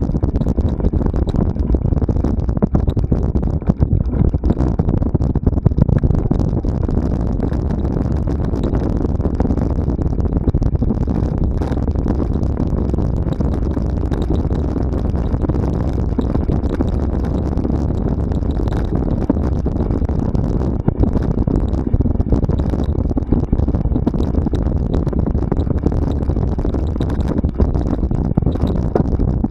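Mountain bike ridden along a rough cross-country trail: steady wind rumble on the microphone with frequent small knocks and rattles.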